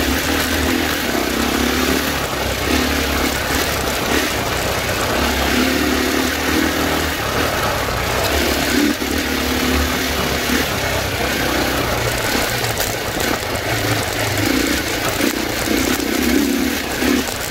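Dirt bike engine running under way, its pitch rising and falling as the throttle is opened and eased off.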